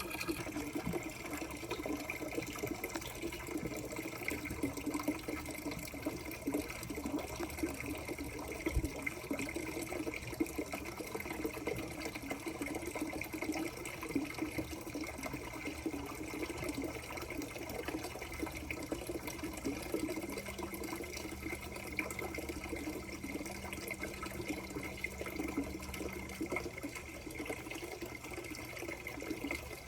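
Water running steadily through a marble-run channel: a continuous, even splashing and trickling.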